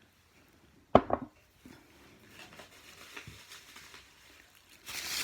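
Ceramic china pieces being handled: a sharp clink with a short ring about a second in as one piece knocks against another, then a couple of lighter knocks and some rustling near the end.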